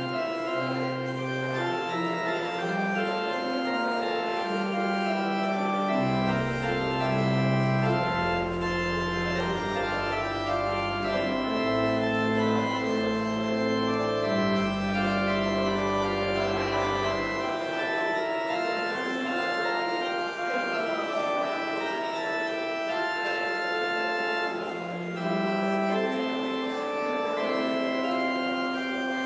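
Pipe organ playing the postlude after the service: slow, held chords that change every second or two, with deep pedal bass notes coming in about six seconds in and dropping out about two-thirds of the way through.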